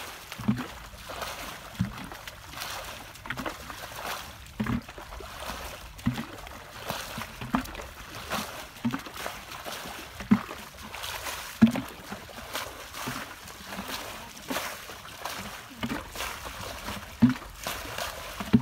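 Muddy water being bailed out of a shallow pool with plastic buckets: repeated scoops and splashes, about one a second, each with a dull slap.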